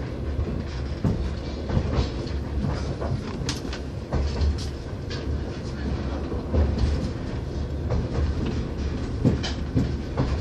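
Passenger train carriage running on the rails, heard from inside: a steady low rumble with irregular clacks as the wheels pass over rail joints.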